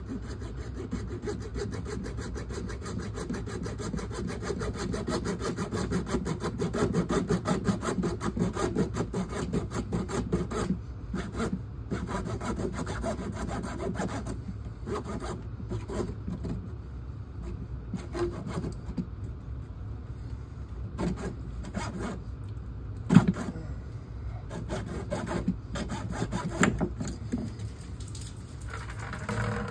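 Hand saw cutting through CPVC water pipe with quick back-and-forth strokes, steady for the first third, then in short spurts with pauses between. One sharp knock comes about three-quarters of the way through.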